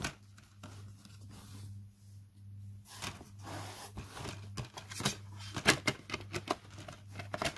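DVD discs and a plastic multi-disc case being handled: a run of short sharp clicks and rubbing, coming faster in the second half, over a faint steady low hum.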